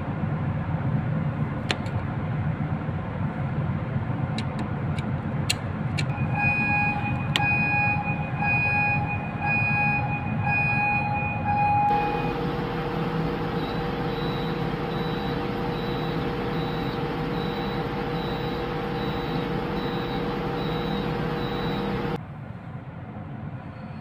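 A few sharp clicks as the test button of a Schneider LRD33 thermal overload relay is pushed to trip it, over steady machinery-room hum, followed by an alarm beeping repeatedly: the steering gear motor overload alarm being tested. After that, a steady electrical hum with a faint high beep repeating, the alarm sounding at the steering gear alarm panel.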